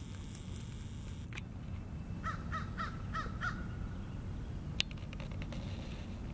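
A crow cawing five times in quick succession, over a steady low rumble. A single sharp click follows about three-quarters of the way through.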